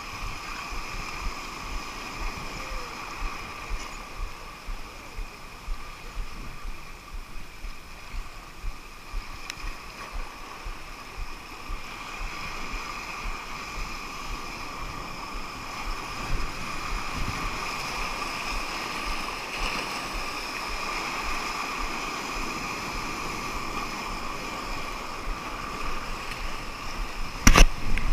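Sea surf washing over shoreline rocks, with wind gusting on the microphone and a steady high whine underneath. A sharp knock comes near the end.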